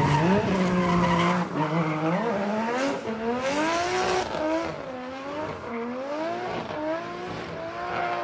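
Sports car engine revving hard, its pitch rising and falling again and again as the car spins donuts, with the rear tyres squealing and skidding on the asphalt in a burnout.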